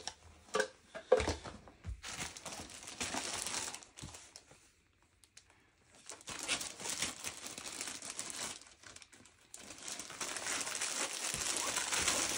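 Clear plastic sleeve on a rolled diamond-painting canvas crinkling as it is handled and pulled off. A few short knocks come first, then crinkling that pauses briefly around the middle and is loudest near the end.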